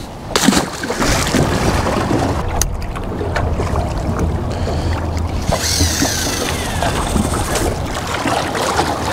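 Wind buffeting the microphone: a steady, uneven rushing with a deep rumble. A short sharp knock comes about half a second in, and a brighter hiss swells for a couple of seconds around six seconds in.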